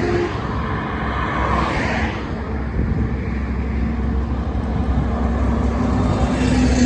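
Highway traffic: a steady low rumble of engines and tyres. One vehicle passes and fades away in the first two seconds, and another draws near at the end.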